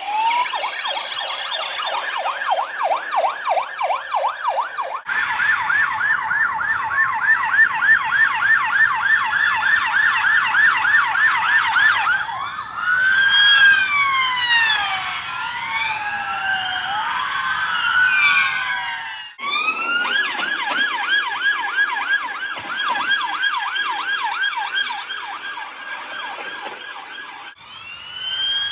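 UK police sirens, mostly in the fast yelp tone of about four rapid up-and-down sweeps a second. About twelve seconds in, this gives way to several sirens wailing slowly over one another at different pitches, then the yelp returns. The sound changes abruptly a few times, and a slow wail begins near the end.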